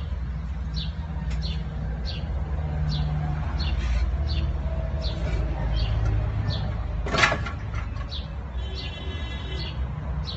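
A small bird chirping over and over, about two short high chirps a second, over a steady low rumble. A single sharp knock about seven seconds in is the loudest sound.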